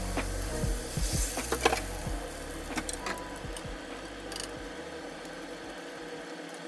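Scattered light clicks and knocks of kitchen work over soft background music, which fades out about five seconds in.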